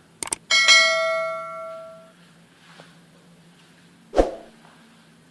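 A bright metallic ring, struck once and dying away over about a second and a half, preceded by a couple of light clicks. A short dull thump follows about four seconds in.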